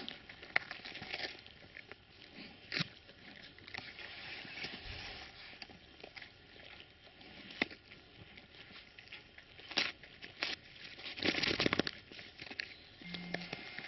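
Tibetan mastiff gnawing a piece of wood, with irregular crunches and cracks as it splinters, and a dense run of crunching near the end.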